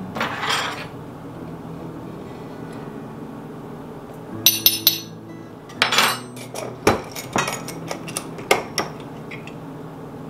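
A metal measuring spoon and small glass jars clinking and knocking: a brief scrape at the start, a ringing glass clink about four and a half seconds in, then a run of sharp clicks and knocks as jars are handled on a spice rack.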